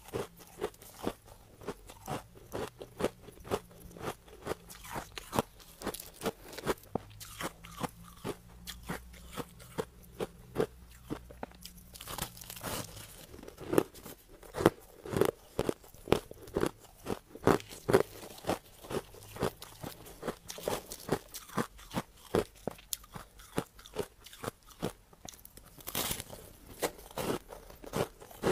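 Crushed ice being chewed close to the microphone: a steady run of sharp, hard crunches, a couple each second.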